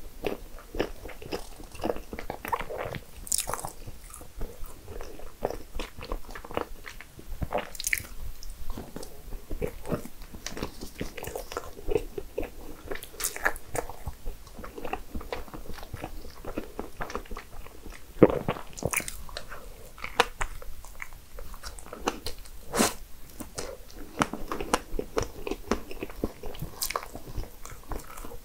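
Close-miked eating: a person biting and chewing desserts, with many small crunches and mouth clicks.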